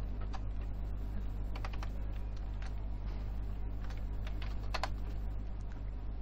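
Computer keyboard keys pressed in short, scattered taps, a handful of separate keystrokes, over a steady low hum.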